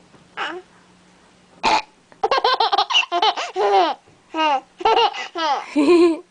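Baby laughing in a long run of high-pitched, choppy peals from about two seconds in, set off by its mother's fake burps. The laughter follows a brief squeal and a short sharp sound.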